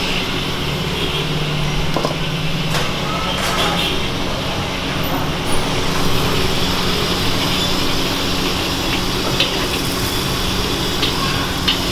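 Steady roar of a gas wok burner under a wok of hot frying oil, with a low hum throughout and a few light clinks near the end.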